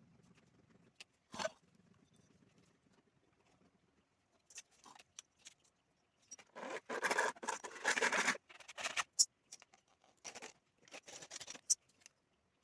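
Irregular handling noises: scattered clicks and scrapes, with a longer scraping rustle of about a second and a half around the middle.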